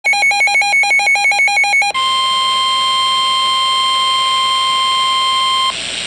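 Weather radio sounding a severe thunderstorm warning alert: a rapid two-pitch beeping alarm for about two seconds, then the steady 1050 Hz NOAA Weather Radio warning alarm tone, which cuts off shortly before the broadcast voice begins.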